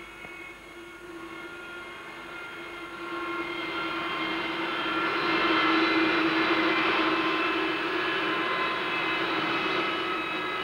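The turbojet engine of the Soviet Turbolyot vertical take-off test rig running with a steady whine. The jet noise grows louder from about three seconds in and then holds.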